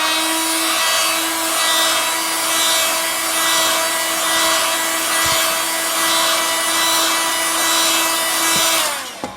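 Handheld hot-air blower running steadily, a fan whine over a rush of air, reaching full speed at the start and winding down near the end. It is heating a stiff faux-leather cover to soften it before stretching.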